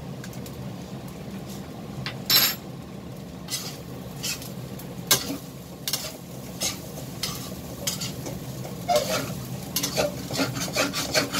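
Fried rice being stirred in a stainless steel pan with a metal spatula: the spatula scrapes and knocks against the pan over a light sizzle. The strokes are sparse at first, the loudest a couple of seconds in, and come faster near the end, over a steady low hum.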